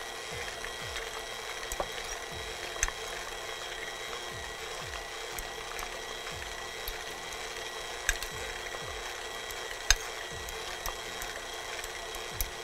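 A metal fork mashing soft ripe figs in a glass baking dish, with scattered sharp clicks of the fork striking the glass, the loudest about 8 and 10 seconds in. A faint steady hum runs underneath.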